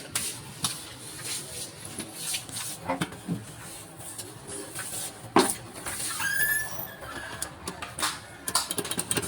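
Scattered clicks and knocks from handling a desktop PC and pressing its power button, with a louder knock about halfway and a quick run of clicks near the end. No fan or drive spins up: the computer is dead and won't power on.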